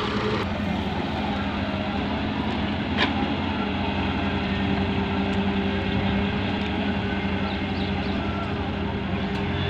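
Diesel engines running steadily: a Volvo EW130 wheeled excavator digging and farm tractors idling, with one sharp knock about three seconds in.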